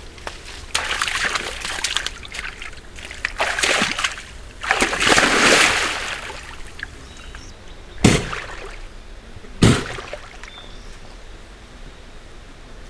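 Moose sneezing and snorting: several longer hissing blows through the nose in the first half, then two short, sharp sneezes about a second and a half apart. It is clearing insects out of its nose.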